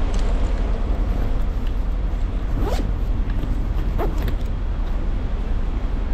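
City street traffic noise with a steady low rumble, partly wind on the microphone, and two short falling squeaks about two and a half and four seconds in.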